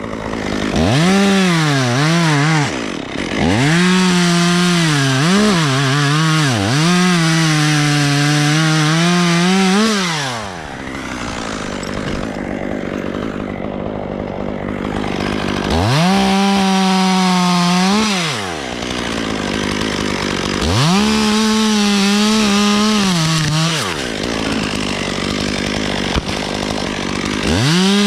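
Chainsaw cutting tulip poplar wood in repeated bursts of full throttle, dropping back to idle between cuts, with a longer idle stretch in the middle.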